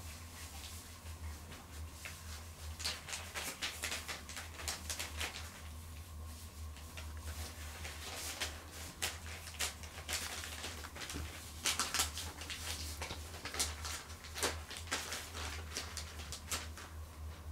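Cotton de Tulear puppies moving about on newspapers and bedding: irregular rustling and crinkling with sharper crackles, loudest about twelve seconds in, over a steady low hum.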